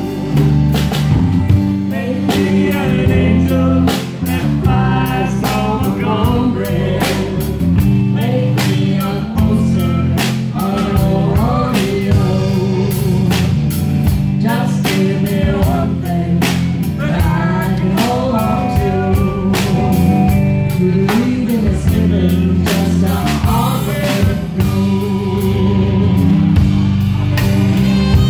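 Live rock band playing: a woman singing lead over electric guitar, electric bass and a drum kit keeping a steady beat.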